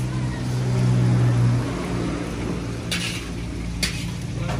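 A motor running with a steady low hum, a little louder in the first second and a half, broken by two short hissing bursts about three and four seconds in.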